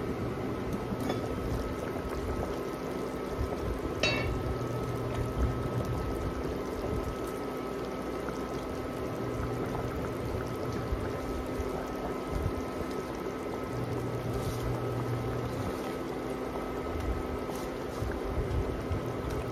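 Sour pork broth boiling in an enameled cast-iron Dutch oven, a steady bubbling over the even hum of an induction cooktop. A single sharp metallic clink comes about four seconds in.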